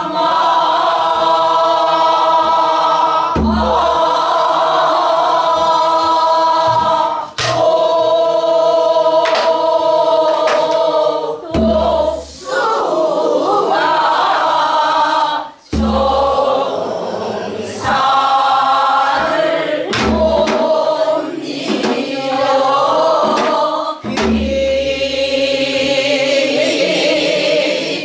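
Mixed chorus singing a Korean Namdo folk song (namdo minyo) in unison, in phrases broken by short breaths, with a solo voice leading at the start. A buk barrel drum keeps the rhythm, with deep thumps and sharp strokes every few seconds.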